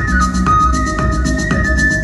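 Electronic dance backing track: a steady beat of about two strokes a second under a low bass and held synth notes that step between pitches, with no singing.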